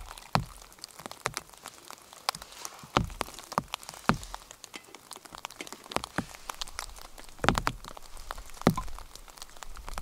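Rain with large drops of melting snow falling from the trees, tapping irregularly, with a few louder knocks.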